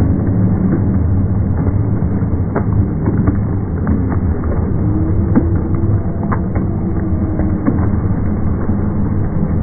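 Roadside crowd clapping and cheering, slowed down along with the slow-motion footage so it sounds deep and dull, with individual claps heard as scattered low knocks.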